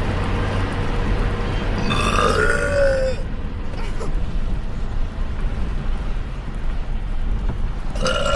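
A woman burping: one long burp about two seconds in that lasts about a second, and another starting near the end, over a steady low rumble.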